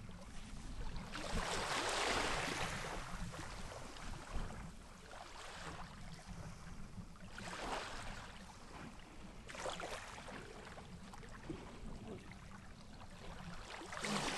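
Seawater splashing and lapping as walruses swim at the surface, rising in a few separate surges of splash, over a steady low rumble.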